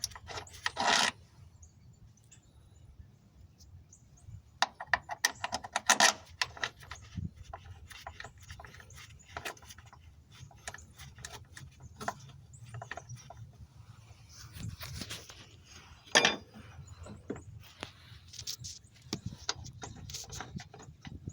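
Hand tools at work on metal: scattered clicks and clinks, a quick run of rapid clicks about five seconds in, and a sharp knock about sixteen seconds in.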